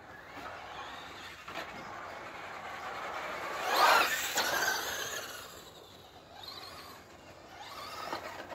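Traxxas Rustler VXL RC truck's brushless electric motor whining as it is driven fast, the pitch rising and falling with throttle and speed. The loudest pass comes about four seconds in, with another swell near the end.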